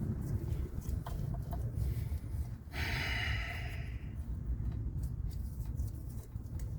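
A person exhaling heavily in a sigh about three seconds in, over a low steady rumble.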